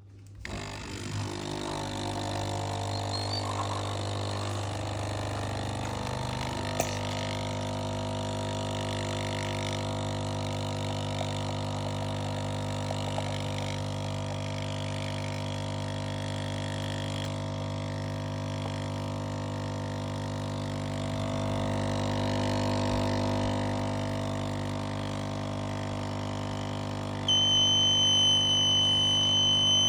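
Capsule espresso machine's pump humming steadily as it brews a lungo into the cup. About 27 s in, a steady high-pitched tone joins and the sound gets louder.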